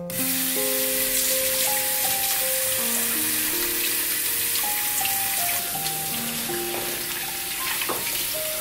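Kitchen tap running in a steady hissing stream onto komatsuna greens in a stainless steel bowl, as the stalks are rinsed by hand under it. Soft piano music plays underneath.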